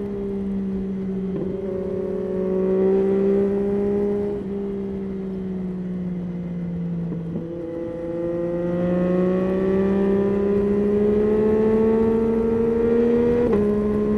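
Yamaha Tracer 9's 890 cc inline three-cylinder engine running under way, its pitch climbing slowly as it pulls. The pitch drops sharply at gear changes about a second and a half in, about seven seconds in and near the end.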